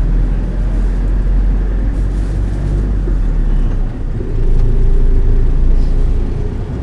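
Steady low rumble of a city bus engine heard from inside the bus while it drives. About four seconds in the engine note drops briefly, then picks up again.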